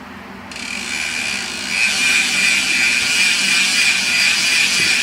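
DT Swiss 350 rear hub's star-ratchet freehub buzzing as the wheel freewheels: a loud, steady, high ratcheting buzz that starts about half a second in. It is the loud hub sound that riders call the "tunog mayaman" (rich) sound.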